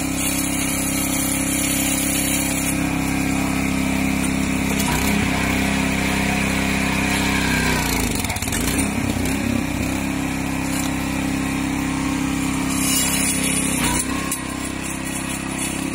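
Small engine of a hydraulic universal rail wrench running steadily to drive its hydraulic pump. The engine note sags briefly about eight seconds in, then recovers.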